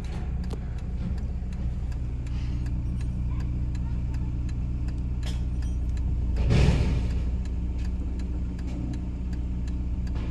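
A car engine idling, with a steady ticking of about three ticks a second, like a turn-signal relay. About six and a half seconds in, a brief louder rush of noise swells and fades.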